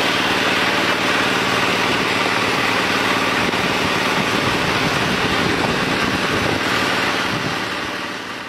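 A motor running steadily with a low hum under a dense hiss, fading out near the end.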